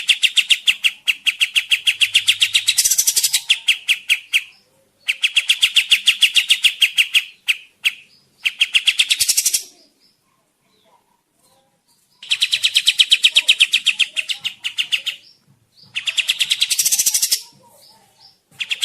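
Kapas tembak bird singing its fast chattering song: rapid, evenly pulsed trills delivered in bursts of a few seconds each, with a pause of about two seconds in the middle.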